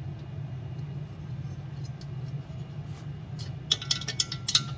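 A 12 mm wrench tightening a diesel heater's igniter plug, with a quick run of small metallic clicks near the end, over a steady low hum.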